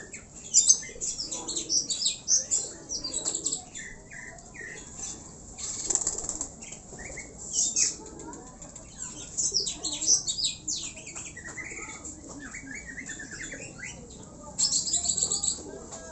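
Pigeons' wings flapping in repeated short bursts as young birds take off and land on short training hops.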